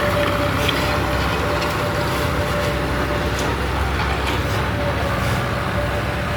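Heavy diesel construction machinery running steadily: a low engine rumble with a constant whine on top.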